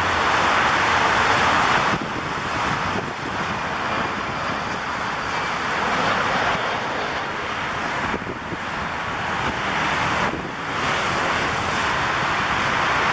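Heavy rain with wind buffeting the microphone: a loud rushing noise that swells and drops every few seconds.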